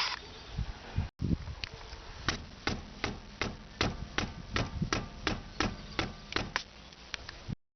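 Front brake pads knocking in a Volkswagen-group FS-III caliper: a steady series of sharp knocks, about three a second, cut off suddenly near the end. This is the pad knock the video sets out to cure, from pads sitting loose in the caliper.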